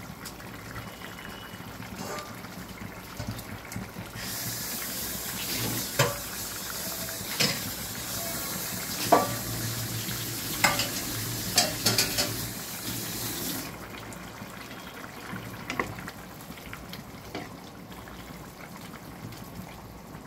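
Fish curry simmering and sizzling in a kadai, the hiss stronger and brighter through the middle, with several sharp knocks of a utensil and the fish pieces against the pan. Near the end a wooden spatula stirs the pot.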